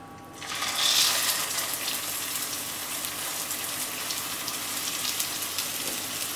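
Raw turkey burger patty sizzling in hot oil in a frying pan. The sizzle starts suddenly about half a second in as the patty goes into the oil, is loudest around a second in, then settles into a steady frying hiss.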